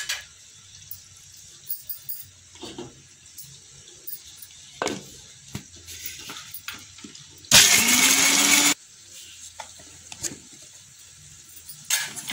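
Kitchen mixer grinder run once for about a second, whirring at speed and rising briefly in pitch at the start, as it dry-grinds roasted peanuts, cashews, dried red chillies and whole spices to a coarse powder. Before it come a few short knocks of the steel jar and lid being handled.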